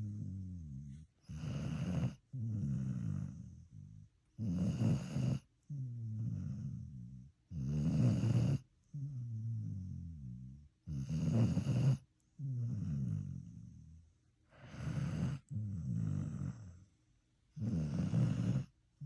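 Dog snoring in its sleep: six loud snores, one about every three seconds, each followed by a quieter drawn-out breath whose pitch falls.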